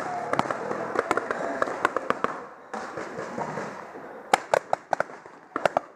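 Paintball markers firing, sharp irregular pops on and off, with a tight cluster of loud shots about four and a half seconds in and a few more near the end.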